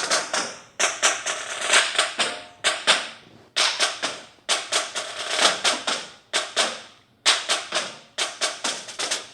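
Clusters of sharp clicks and taps in quick runs, each group fading briefly before the next, about one group a second.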